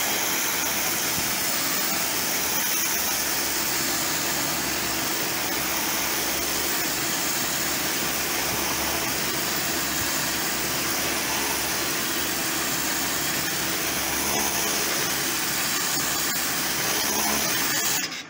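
Kärcher electric pressure washer running steadily, its motor and pump humming under the hiss of the high-pressure water jet blasting dirt off a concrete wall. It cuts off suddenly near the end.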